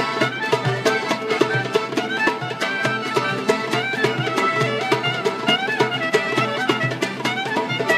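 Street band playing lively traditional folk music: a clarinet carries a gliding melody over accordion, acoustic guitar and a tambourine keeping a steady beat.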